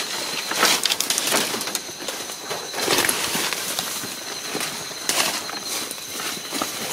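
Footsteps crunching and rustling through dry leaf litter and undergrowth, irregular, with a faint steady high whine behind them.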